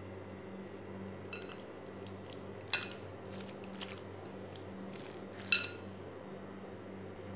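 Fingers mashing soft fried eggplant with chopped onion on a plate: quiet squishing with a few sharp clicks against the plate, the loudest about three and five and a half seconds in, over a steady low hum.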